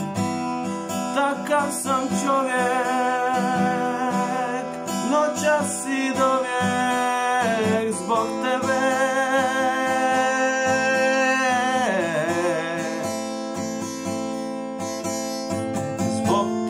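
Acoustic guitar strummed steadily under a man's singing voice that holds long, wavering notes and glides down about twelve seconds in. After that the guitar plays on alone.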